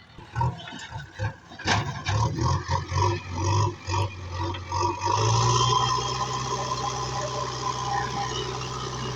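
JCB backhoe loader's diesel engine working with uneven thuds and knocks, one sharp knock about two seconds in, then settling into a steady, even run for the last few seconds.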